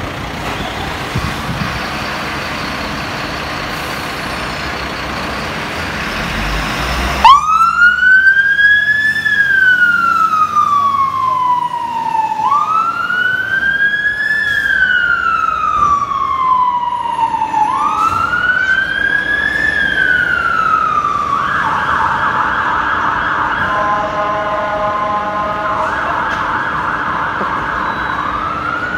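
A fire engine's diesel engine running, then about seven seconds in its two-tone siren starts in a slow wail, rising and falling about every five seconds, three times. It then switches for a few seconds to a harsher, faster bullhorn tone before the wail returns near the end.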